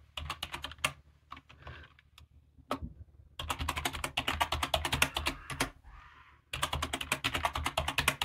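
Computer keyboard being typed on, entering a password: three quick runs of keystrokes with short pauses between them.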